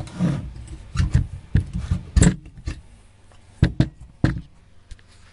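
Irregular knocks and rubbing, a handful of uneven taps and scrapes with pauses between them: handling noise from the camera being moved around and the microphone being brushed.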